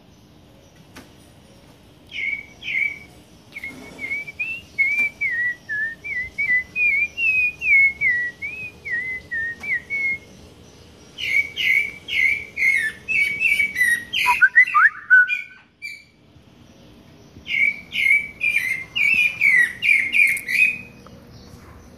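Pale-breasted thrush (sabiá-barranqueira) singing: three phrases of quick, repeated whistled notes that jump up and down in pitch, the middle one ending in a short falling glide.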